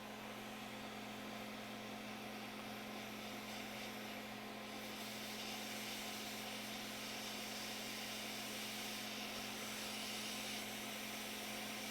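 Steady air hiss of a hot air rework station heating a circuit board, over the fan hum of a fume extractor. The hiss grows brighter about five seconds in.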